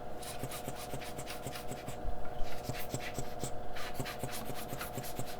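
Cotton swab soaked in isopropyl alcohol scrubbed back and forth across a PS5 circuit board, a rapid run of scratchy rubbing strokes that clean off residual soldering flux. A steady hum runs underneath.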